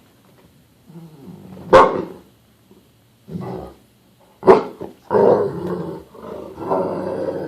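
Dogs growling and barking in rough play: two sharp barks about two and four and a half seconds in, then drawn-out growling through the last couple of seconds.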